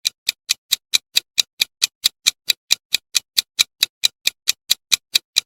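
Quiz countdown timer sound effect: a steady clock-like ticking, about four to five sharp ticks a second.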